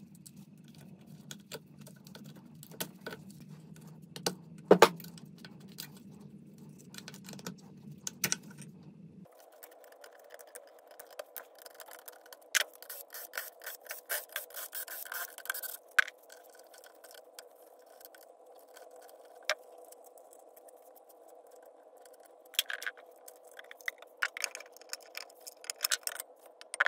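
Scattered clicks, clinks and short scrapes of hand tools and metal parts being handled, with the loudest clink about five seconds in and a busier stretch in the middle. A steady background hum runs underneath and shifts higher about nine seconds in.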